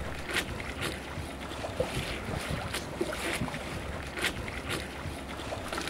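Wind and water rushing past a small sailing boat running through a choppy sea in a strong wind, with occasional short splashes against the hull.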